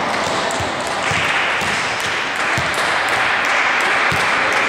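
Steady noise of a sports hall during a volleyball match, with three short dull thuds about two seconds apart, from the ball or players' feet hitting the wooden court floor.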